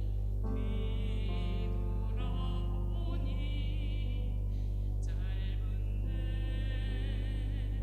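A woman singing a hymn solo in phrases with a wide vibrato over a sustained instrumental accompaniment, with a steady low hum underneath.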